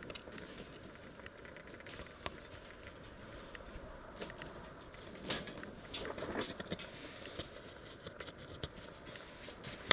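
Faint handling noises as a new clutch-cover gasket is unwrapped and fitted to the engine case: scattered light rustles and small ticks, with a sharp click at the very end.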